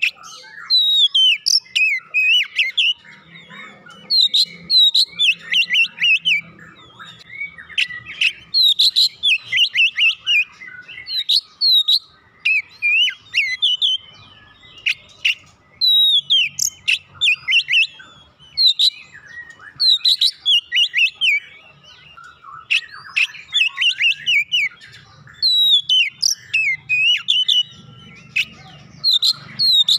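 Oriental magpie-robin singing continuously: a varied song of clear whistled phrases and sharp chirps, coming in quick bursts with short pauses between them.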